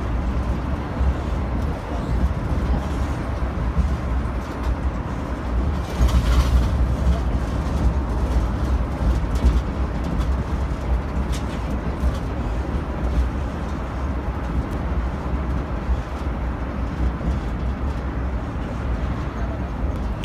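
Zocotren tourist road train heard on board while moving: its engine and tyres give a steady low rumble, with a brief louder rush about six seconds in.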